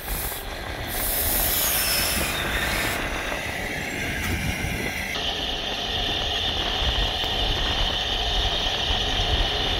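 Narrow-gauge steam tank locomotive Lyd (No. 190) running slowly past, with steam hissing. The hiss grows louder about a second in and settles into a steady higher hiss from about halfway.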